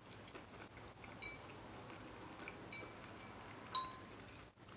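Metal fork clinking lightly against a dish while food is picked up, a few short ringing clinks with the clearest about three-quarters of the way through.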